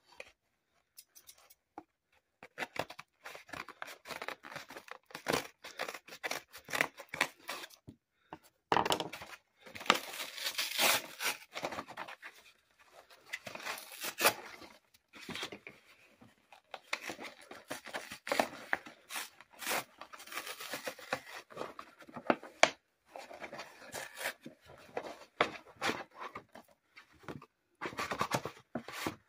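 Brown paper package being torn open by hand: irregular ripping and crinkling of paper, loudest about nine to eleven seconds in and again around fourteen seconds.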